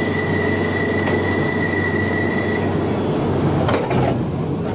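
London Underground tube train running at a platform, with a steady low rumble and a high steady whine that stops about two and a half seconds in. A couple of sharp knocks follow near the end.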